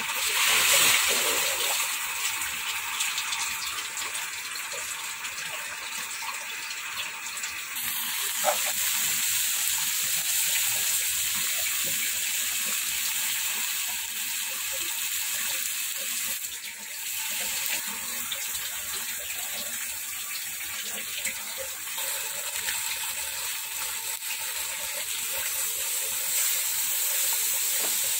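Tilapia and eggplant simmering in a pan: a steady bubbling, sizzling hiss of boiling liquid.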